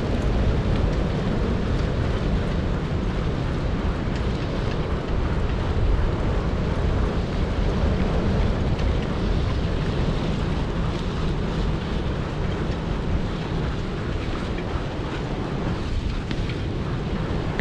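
Steady rush of wind on the microphone, with the rumble of a dog-pulled rig's wheels rolling over a dirt road as a four-dog husky team runs at speed.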